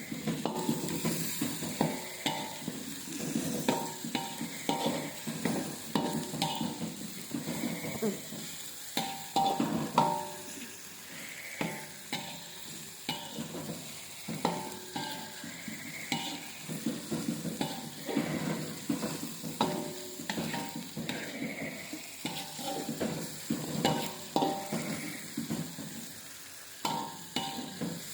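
Food sizzling in a pan while a metal utensil stirs and scrapes it, with irregular knocks that ring briefly against the pan.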